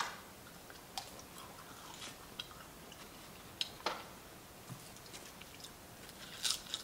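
Close-up eating sounds: soft scattered clicks and smacks of chewing and biting, then a louder cluster of crisp crunches near the end as a sheet of seaweed is bitten into.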